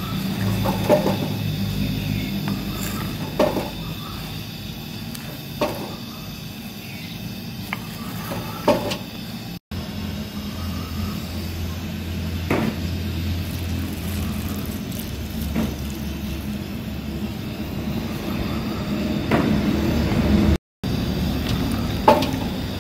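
Wooden spoon stirring chopped bottle gourd in an earthenware pot, knocking sharply against the clay every two to three seconds, over a steady low hum.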